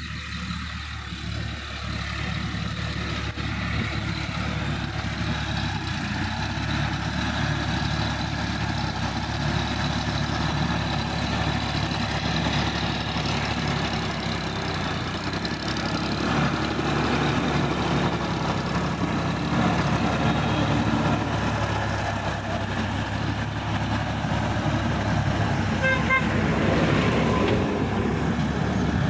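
Sonalika DI 50 tractor's diesel engine running steadily under load as it works through a flooded rice paddy. It grows louder over the first few seconds, then holds.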